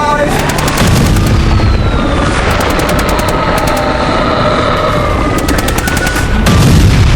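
Machine-gun fire in three rapid bursts over a heavy low rumble, with background music.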